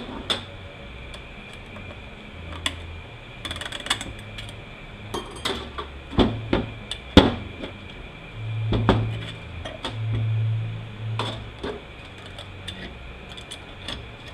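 Metal transmission parts clinking and clattering as a clutch drum is taken apart on the bench, with scattered sharp clicks and knocks, the loudest around the middle.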